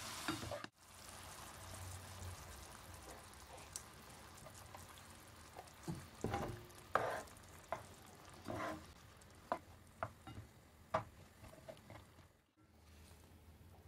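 Chicken and sliced mushrooms sizzling in a frying pan with cream poured over them, stirred with a spoon. Several sharp clicks and scrapes of the spoon against the pan in the second half. The sizzle cuts out briefly near the start and again near the end.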